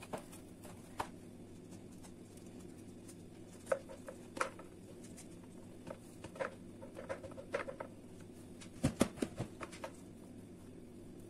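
Scattered light taps and clicks of hands and a spoon working a layered cake in a stainless-steel cake ring. Crumbled sponge is pressed down and cream is spooned on, with a cluster of louder knocks about nine seconds in, over a steady low hum.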